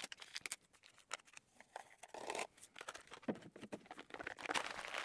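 Crinkling of a single-serving stick pack of pre-workout powder being emptied into a plastic shaker bottle, with scattered light clicks and taps. Near the end comes the plastic lid being screwed onto the bottle.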